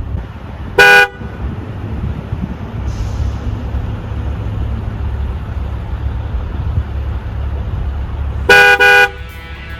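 2022 Tesla Model S Plaid's car horn sounding on its own, with no one pressing it: one short honk about a second in, then a double honk near the end. The self-initiated honking is the fault the car was towed in for.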